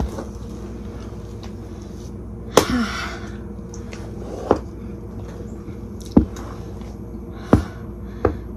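Wooden stirring stick knocking against a metal pan as thick maize-flour dhido is beaten and stirred, a sharp knock every second or two over a steady low hum. About two and a half seconds in, one knock comes with an effortful breathy exhale.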